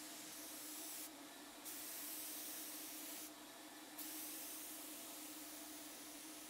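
Paint spray gun on an air hose hissing as it sprays urethane paint. The spray cuts out twice briefly, about a second in and again past three seconds, between passes. A steady low hum runs underneath.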